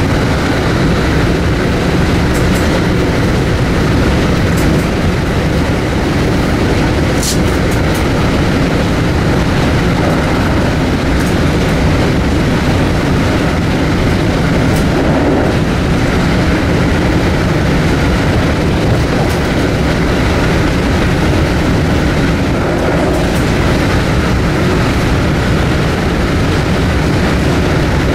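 Metro-North M2 electric multiple-unit railcar running along the line, heard from inside the car: a steady rumble of wheels on rail with occasional sharp clicks.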